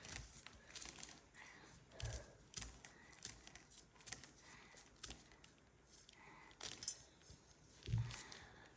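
Dry corn kernels being pushed and twisted off the cob by hand: faint, scattered clicks and rattles as kernels fall into a bowl.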